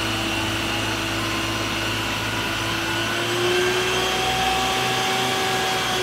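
Isuzu water tanker truck running its pump to feed the roof water cannon: a steady whirring drone under the hiss of the water jet, the drone's pitch rising slightly about three seconds in.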